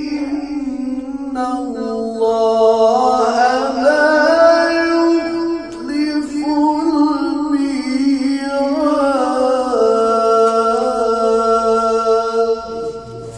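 A man recites the Quran in melodic tajweed style, chanting in long held notes with slow, ornamented pitch glides. There is a brief breath about halfway, and the phrase fades out near the end.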